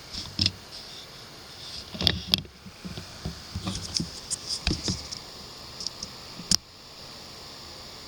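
Steady high-pitched chirring of night insects, with a run of close knocks and rustles at irregular intervals, the sharpest about two seconds in and again about six and a half seconds in.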